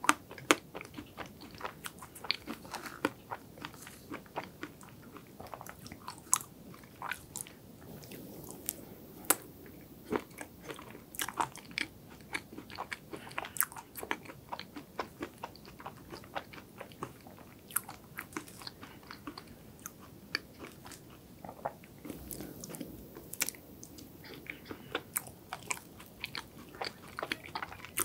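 Close-miked eating: a fork cutting into chocolate ice cream cake, then crisp crunching and chewing of mouthfuls. The sound comes as many irregular sharp clicks and crunches.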